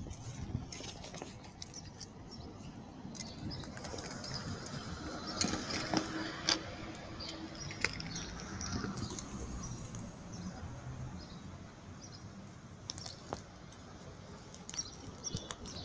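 Handling noise from a smartphone being moved around in the hand: fingers rubbing and brushing against the phone near its microphone, with scattered small clicks and taps.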